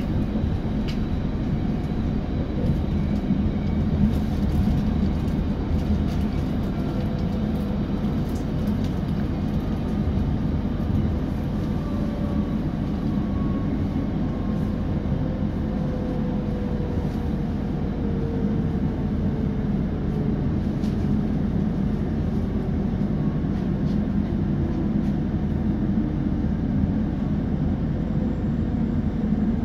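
ABB UBp electric train running on the rails: a steady rumble with a thyristor-controlled traction motor whine that slowly falls in pitch.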